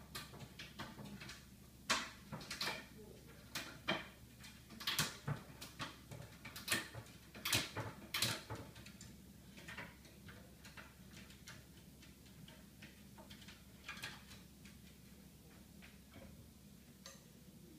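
A run of sharp clicks and knocks, dense for the first half and sparser afterwards, from a kitchen cabinet door with a childproof latch being worked open by a dog.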